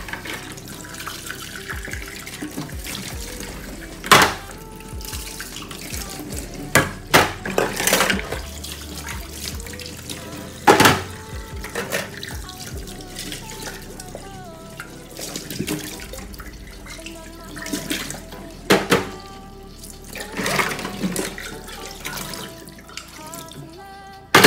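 Kitchen tap running into a stainless steel sink as plastic cups and pots are rinsed under it, with several sharp clacks of dishes knocking together. Background music plays along.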